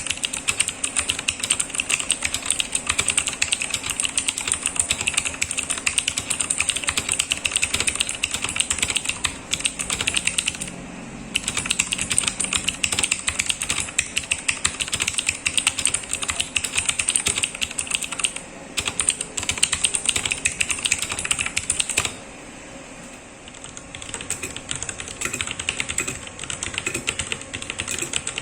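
Fast typing on a mechanical keyboard with Cherry MX switches, a dense stream of key clicks. There is a short pause about eleven seconds in, and a quieter stretch of about two seconds a little after twenty seconds before the typing picks up again.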